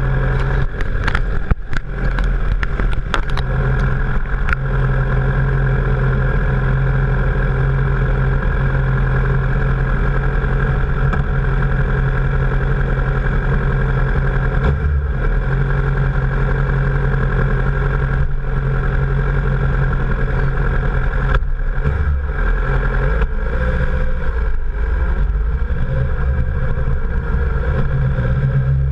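Sport motorcycle engine running at fairly steady revs while riding, picked up close by a bike-mounted camera, with a few sharp clicks and knocks in the first few seconds.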